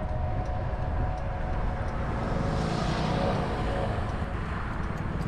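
Motorbike running while being ridden, with heavy wind rumble on the camera microphone and a faint steady engine tone, as the bike slows to turn off the road.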